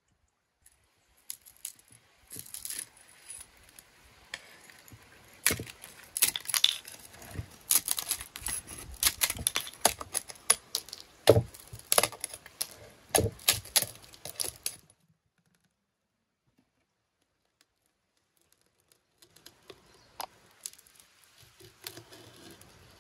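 Knife scraping and prying at the hard baked dough seal around a clay pot's lid, a dense run of clicks, scrapes and cracks as the crust breaks away and the blade knocks on the clay. It stops abruptly, and after a pause a few fainter scrapes and knocks come near the end.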